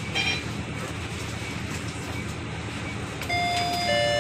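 Bus door-closing warning: about three seconds in, a loud steady electronic chime starts, and a second, slightly lower tone joins it about half a second later. Beneath it runs the bus cabin's steady low hum, with a brief high beep just after the start.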